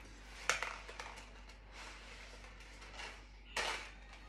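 Dry fettuccine sticks clicking and rattling against the plastic lid of a Thermomix TM6 as a bundle is pushed down through the hole in the lid. There is a sharp tap about half a second in and a brief rattle near the end.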